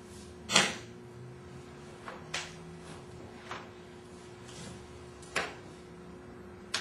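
Kenpo karate students moving through Short Form 3, about five sharp thumps and slaps of feet and strikes at irregular intervals.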